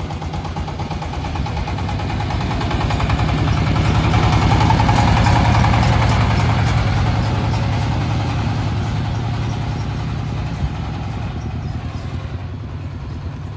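The single-cylinder diesel engine of a boat-hulled paddy-field tractor running steadily on the move. It grows louder as the machine approaches, is loudest as it passes close about four to six seconds in, then fades as it drives away.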